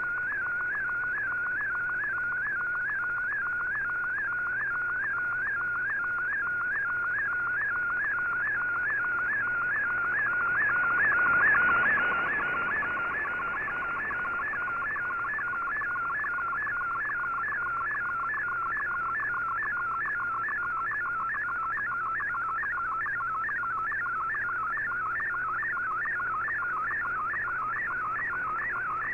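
A digital picture transmission in MFSK mode, received off shortwave through a communications receiver: a warbling tone that sweeps up and down a few times a second as each line of the image is sent. A short swell of static rises and fades about eleven seconds in.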